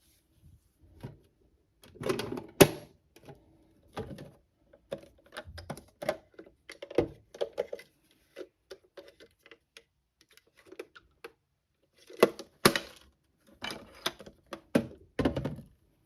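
Irregular plastic clicking, knocking and rattling from a toy washing machine, with sharper knocks about two and a half seconds in and again about twelve and a half seconds in.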